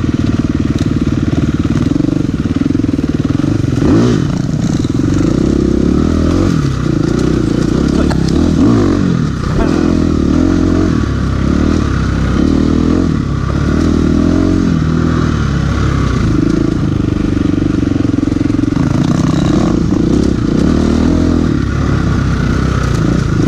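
Husqvarna FE350 350cc single-cylinder four-stroke dirt bike engine, uncorked with an aftermarket power kit, running under load on a trail ride. The pitch rises and falls again and again as the throttle is opened and rolled off, most busily through the middle of the stretch.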